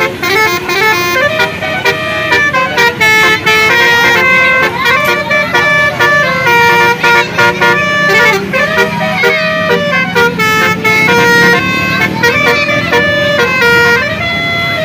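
Basuri telolet musical horn on a vehicle playing a fast tune, loud, hopping between several pitched notes with short breaks between them and a few notes held for about a second.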